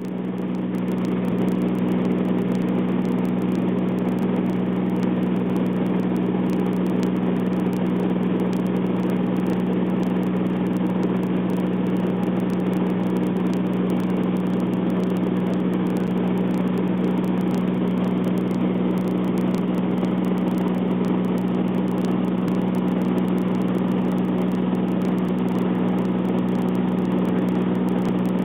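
Small propeller airplane's engine droning steadily, heard from inside the cabin: a strong even hum with a hiss over it. It fades in over the first couple of seconds.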